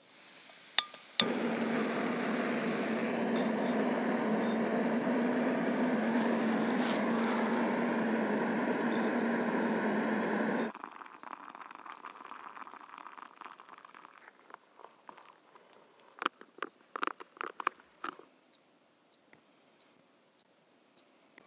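Canister-top backpacking gas stove on an isobutane canister: gas hissing on, two sharp clicks, the second as the burner catches, then the burner burning with a loud steady rushing hiss for about nine seconds before it cuts off suddenly. Faint scattered clicks and rustles follow.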